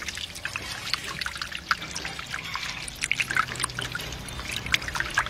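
Water trickling and splashing, with many small irregular drips and splashes.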